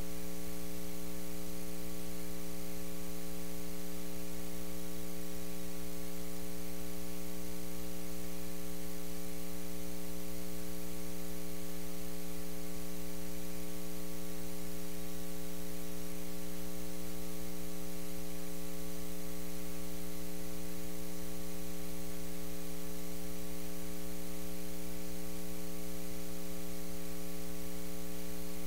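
Steady electrical mains hum and buzz with a constant hiss, unchanging throughout; no voices or room sounds come through.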